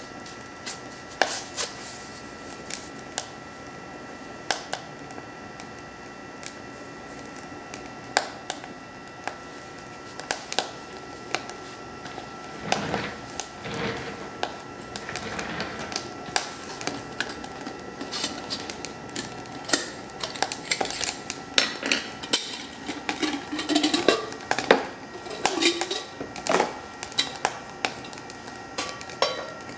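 Wood fire crackling and popping inside a BioLite camp stove, over a steady high whine from the stove's electric fan. In the second half the pops come thicker, with a few clinks and knocks of metal things set down beside it.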